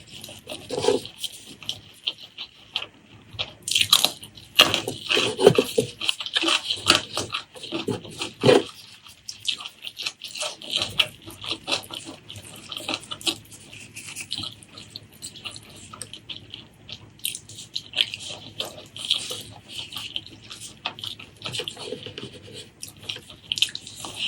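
Close-miked eating: wet chewing and lip-smacking in an irregular run of short clicks, with brief pauses between mouthfuls.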